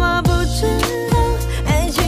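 Background music: a pop song with a steady beat and a strong bass line.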